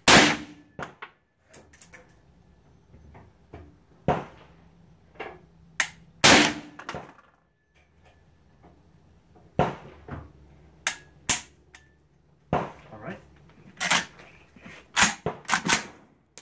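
Suppressed Zastava M92 short-barreled AK-pattern rifle fired in single shots, each a sharp crack. The shots come several seconds apart at first and quicker, some in quick pairs, in the last few seconds.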